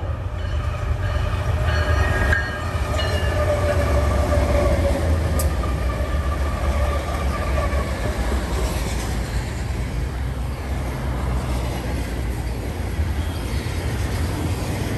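Diesel freight locomotives and a double-stack intermodal train passing close by: a steady low engine rumble, with a tone that slides down in pitch as the locomotives go by, then the rolling rattle and clatter of the container well cars.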